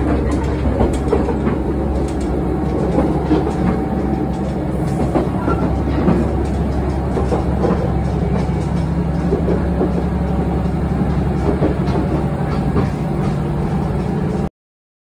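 Diesel railcar running, heard from inside the passenger car: a steady engine drone with wheels clicking over the rail joints. It cuts off suddenly near the end.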